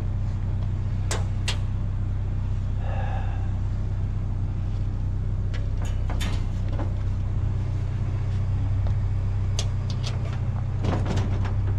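A motor vehicle's engine idling steadily, with scattered clicks and knocks of metal and bungee-cord hooks being handled.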